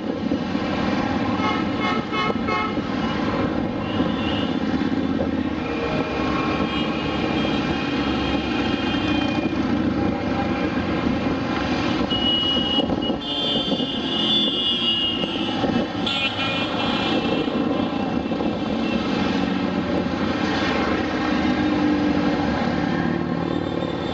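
Motorcycle engines of a long convoy running continuously as the bikes ride past at low speed, a dense mix of many engines. A high steady tone cuts in for a few seconds about halfway through.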